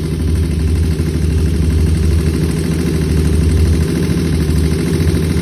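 2001 Honda TRX400's single-cylinder four-stroke engine idling steadily on its freshly fitted OEM carburetor, its pitch easing slightly about four seconds in.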